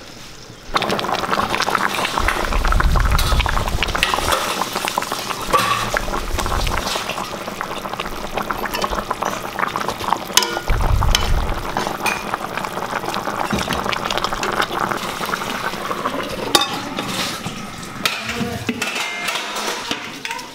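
Chicken jhol (gravy) bubbling and simmering in a pan, with a metal spoon stirring through it, starting abruptly about a second in. A few low thumps come through the bubbling.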